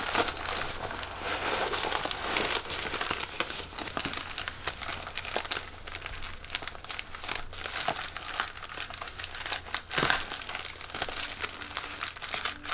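White plastic poly mailer bag crinkling and rustling as hands grip and pull at it to get it open, in irregular crackles, with one sharper crackle about ten seconds in.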